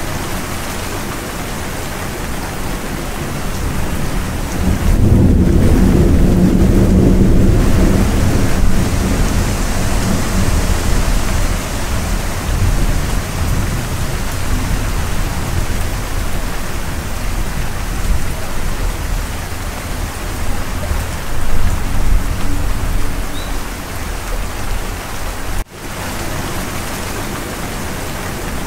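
Steady heavy rain with thunder, a long low rumble swelling about four seconds in and rolling on for several seconds before easing back into the rain. The sound cuts out for a moment near the end.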